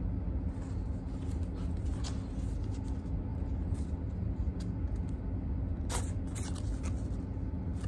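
A steady low hum, with light rustles and clicks of photocards being handled and flipped; a sharper crackle about six seconds in.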